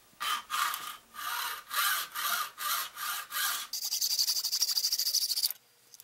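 Hacksaw cutting through a short ring of PVC pipe clamped in a vise, in even back-and-forth strokes of about two a second. About three and a half seconds in it changes to a quicker, steadier, higher rasp, which stops short about a second before the end.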